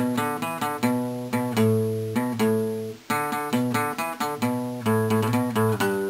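Channel intro music: a plucked guitar playing a melody, notes picked about three a second, with a brief break about three seconds in.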